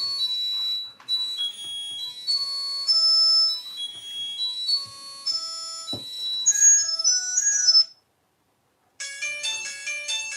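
Classic Nokia mobile phone ringtones playing through the phone's small speaker. A high-pitched tune of quick single notes cuts off about eight seconds in. After a second of silence, a fuller, chord-like ringtone starts.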